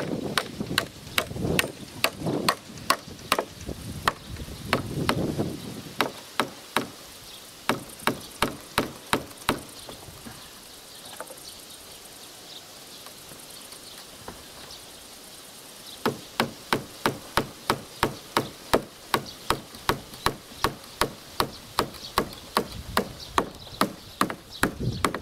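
Hammer driving large nails into a birch log crossbeam: steady, evenly spaced blows about two to three a second, which stop for several seconds in the middle and then start again.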